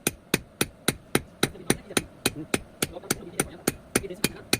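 Blacksmith's hand hammer striking metal on an anvil in a steady, even rhythm, about three to four sharp ringing blows a second.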